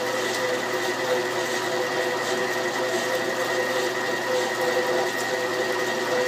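Machine tool running steadily while boring out a hitch pin hole in steel: a constant hum with a steady high whine and no breaks.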